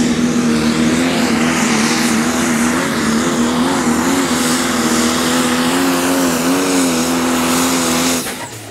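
Pro Stock pulling tractor's turbocharged diesel engine running hard under full load during a pull. Its pitch holds mostly steady and wavers up and down in the middle. The sound drops away near the end.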